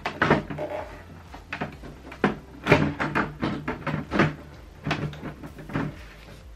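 Plastic lid of a resin curing box being fitted onto its clear plastic walls: a string of irregular plastic knocks and clicks.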